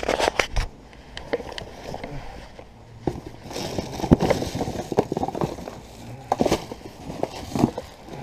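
Handling noise close to the microphone: irregular rustling, with scattered clicks and taps as items and cloth are moved about.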